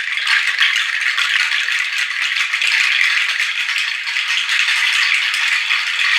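A percussion rattle shaken continuously, a dense, even stream of tiny clicks with no beat.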